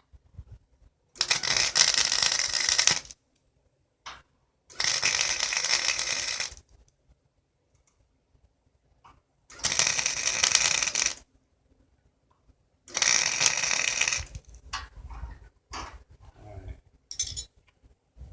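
Four bursts of arc welding, each about two seconds long with silent pauses between, as the welds are laid on the cart's pedals. Faint clicks and knocks of handling the metal follow near the end.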